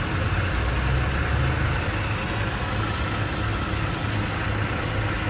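Ford F-250 Super Duty's 6.2-litre gas V8 idling steadily with a low, even hum.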